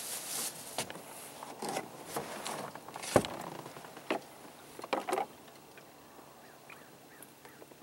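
Irregular splashing and rustling of water and gear around a small boat on calm water, with a sharp knock about three seconds in; it settles to quiet water after about five seconds.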